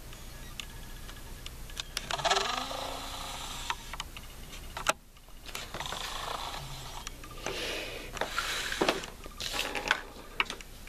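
Markers and pencils clicking and rattling in a plastic bin as a hand rummages through them, then a colored pencil scratching on a paper plate in short coloring strokes.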